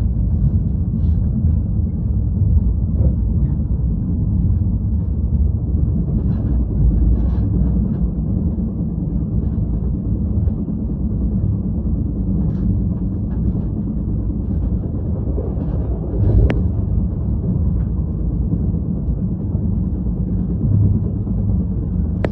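Steady low rumble with scattered light clicks, and one short sharp sound about three-quarters of the way through.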